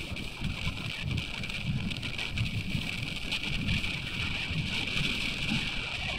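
Wind buffeting the phone's microphone in uneven gusts, over the steady hiss of sea surf breaking on a beach.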